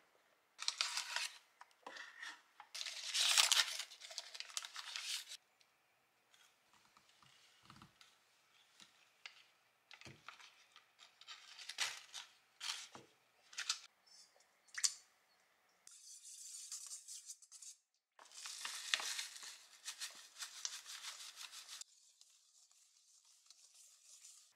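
Foil-lined paper wrapper of a block of butter crinkling as it is unwrapped, then a knife clicking against a wooden cutting board. This is followed by a wire whisk scraping and stirring butter and sugar in a stainless steel bowl.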